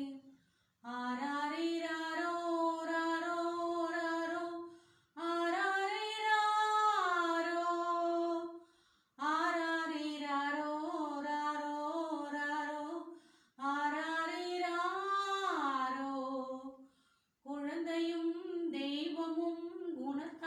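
A woman singing solo and unaccompanied, in five long melodic phrases separated by short pauses.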